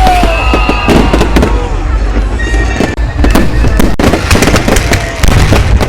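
Fireworks display: a rapid run of bangs and crackles over a continuous low rumble.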